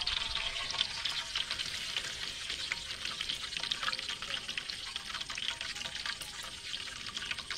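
Whole fish deep-frying in a large wok of hot oil: a dense, steady crackle of sizzling pops that eases slightly toward the end.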